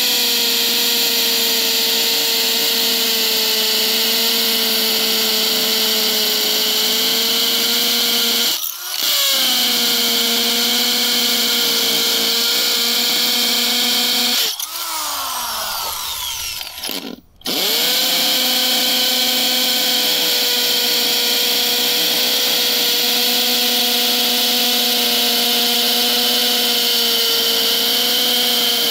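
Bauer 7.5 amp corded hammer drill boring into a concrete driveway with a masonry bit, its motor running at a steady whine. The trigger is let off for a moment about nine seconds in; around fifteen seconds in the motor winds down with a falling pitch, then the drill starts up again and runs on about three seconds later.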